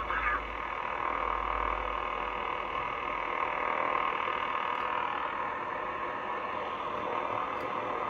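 Shortwave receiver audio on the 20-metre band: steady band noise carrying an over-the-horizon radar signal, sounding very like the old Soviet Duga 'woodpecker'. The operator presumes it is the newer Russian over-the-horizon radar.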